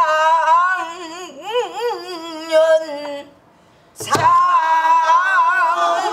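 Female pansori singer holding long, drawn-out notes with wide pitch swings and heavy vibrato, sung to a buk barrel drum that is struck once about four seconds in.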